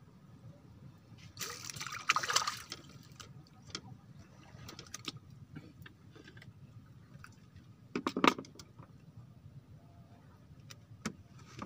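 Water splashing at the side of a floating bamboo fishing platform: a longer splash about two seconds in and a short, louder one about eight seconds in, with a few light clicks between.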